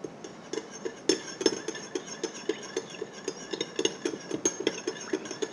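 Stainless steel spoon stirring a sauce in a small glass bowl, clinking against the glass about four times a second, each clink ringing briefly.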